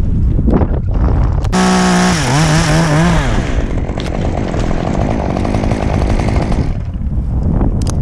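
Stihl chainsaw throttling up suddenly about a second and a half in, its pitch dipping and wavering as it bogs under load cutting through a locust limb, then cutting off near the end. Low wind buffeting on the microphone before and after the cut.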